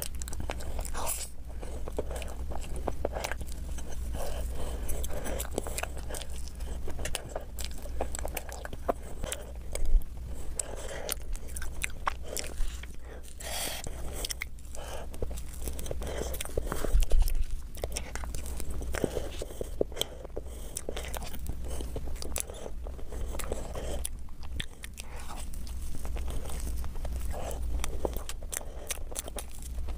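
Close-miked eating sounds: a person chewing soft cream cake, with many small mouth clicks and fingers pulling pieces off the cake, over a steady low hum. Two louder moments stand out, about ten and seventeen seconds in.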